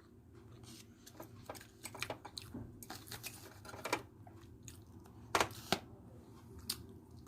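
A person chewing a mouthful of rice noodles, salad and tuna, with soft, irregular wet clicks and crackles and two louder clicks a little past five seconds in.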